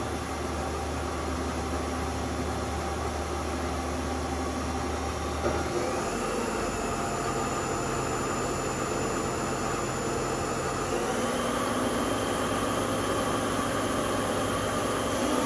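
The spindle drive of a 1999 Haas SL-40T CNC lathe is running steadily with a hum and whine as it is brought up from about 1,000 RPM toward 2,000 RPM. Its tones step to new pitches twice, about six and eleven seconds in, and it grows slightly louder.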